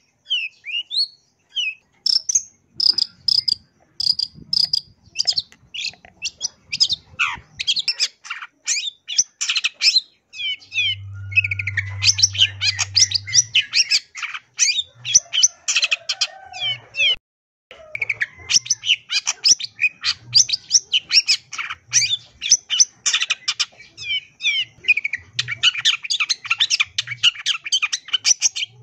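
Long-tailed shrike (cendet) singing a long, rapid, chattering song of varied notes and quick slides, full of mimicked fill-in phrases, pausing only briefly a few times.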